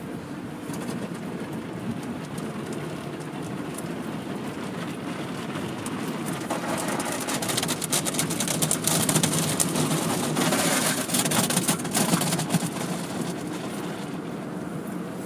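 Automatic car wash heard from inside the car: water and foam spraying onto the glass and body while cloth brushes swish and slap against the car, growing louder around the middle and easing off near the end.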